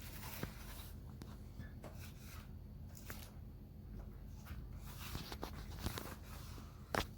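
Faint handling noises in a small room: scattered light clicks and rustles, with one sharper knock near the end.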